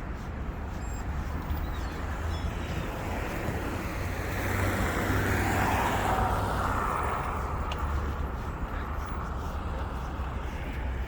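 Steady city road traffic with one car passing close by, its tyre and engine noise swelling and fading about halfway through.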